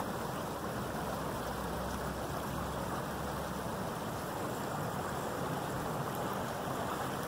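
Small woodland creek flowing, a steady even rush of water.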